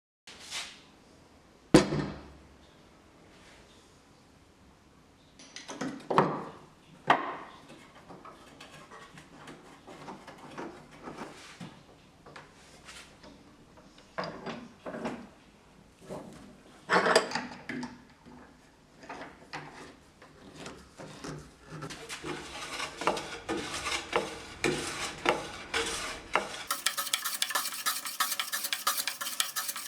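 Metal objects, likely hand tools, clinking and knocking as they are handled and set down, with a sharp knock about two seconds in. Near the end a steady, hissy sound with several held pitches starts.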